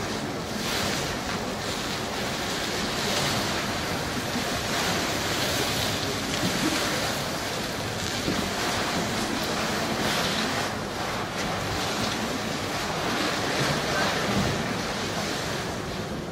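Large cardboard boxes being pushed and slid across stone paving, a continuous scraping hiss that swells and fades as the boxes are shoved along.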